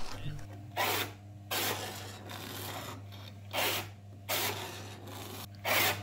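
Homemade sand muller, a rotating bowl powered by a washing-machine universal motor, running with a steady low hum while its plough blades scrape through green sand, giving about five irregular rasping scrapes.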